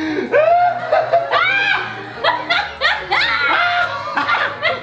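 A man and a woman laughing loudly together in repeated short bursts.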